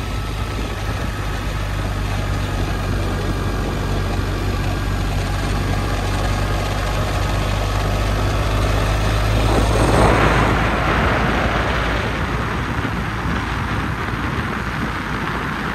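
A vehicle engine running steadily under way, with a continuous rush of road and wind noise. About ten seconds in the rushing swells louder and the low engine hum fades.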